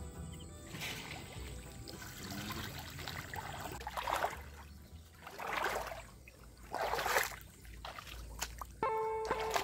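Water trickling and sloshing in three surges about a second and a half apart, over faint background music that gets louder near the end.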